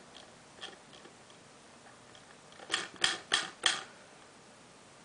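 Pokémon trading cards being handled: a few faint clicks, then four quick, loud scraping strokes in a row about three seconds in.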